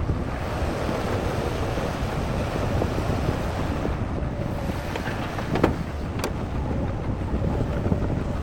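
Heavy construction machinery running with a steady low diesel rumble, wind buffeting the microphone, and two brief sharp knocks a little past the middle.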